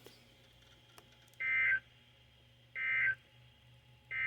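Three short bursts of Emergency Alert System (SAME) digital data tones over NOAA Weather Radio, about a second and a half apart, the last starting near the end. They are the end-of-message code that closes the alert.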